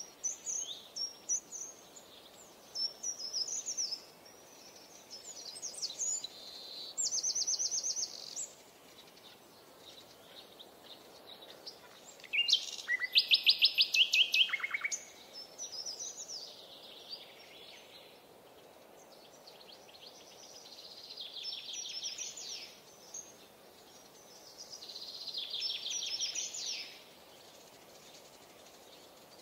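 Small songbirds singing: scattered high chirps and short phrases, with several fast trills, the loudest about halfway through.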